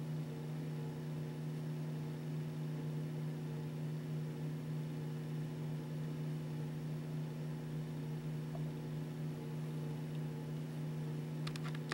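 A steady low electrical-sounding hum made of several even tones over a faint hiss, with a few faint clicks near the end.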